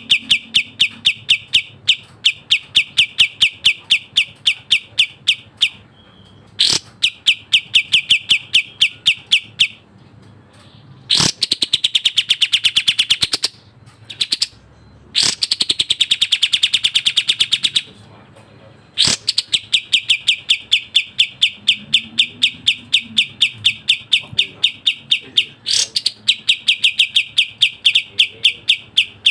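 Kapas tembak songbird singing fast, tightly packed runs of sharp chirps, several notes a second, in long strings broken by short pauses, with two stretches of fuller, richer notes in the middle.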